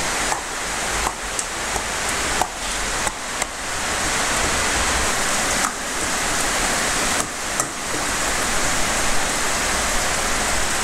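Heavy rain pouring down as a dense, steady hiss, with a few faint clicks.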